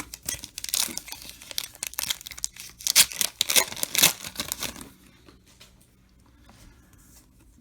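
A trading card pack's wrapper being torn open and crinkled, a dense run of crackling and ripping that dies down about five seconds in.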